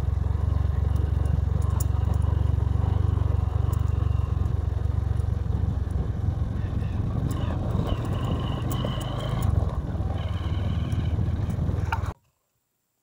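Motorcycle engine running steadily while riding over a loose gravel-and-stone dirt road, with tyres crunching and scraping on the stones. The sound cuts off suddenly near the end.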